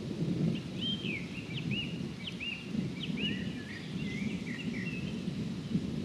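A songbird sings a run of short, arching whistled notes over the low rumble of distant thunder.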